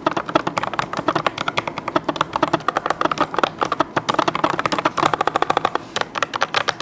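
Fast typing on a Fantech MaxFit Air low-profile mechanical keyboard: a quick, continuous run of keystroke clicks, many per second.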